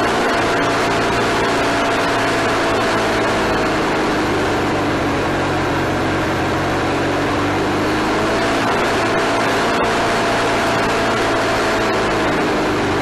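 Wood-Mizer LT40HD sawmill's engine running steadily, with a higher tone above it that slowly drops and recovers twice.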